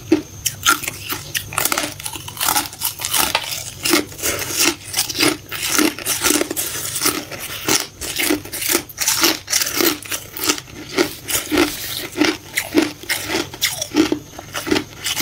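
Thin balloon ice being bitten and chewed close up: many sharp crunches and crackles at a steady chewing rhythm of about one and a half chews a second.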